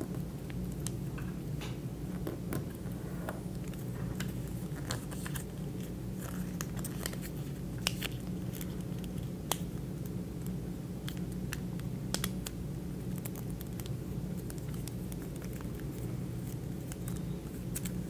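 Sheet of origami paper handled, folded and creased by hand: scattered small crackles and clicks of stiff paper over a steady low background hum.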